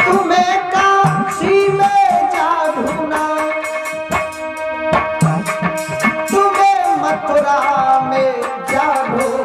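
Live Indian devotional music. A singer's voice comes and goes over steady held notes and a hand drum keeping a regular beat.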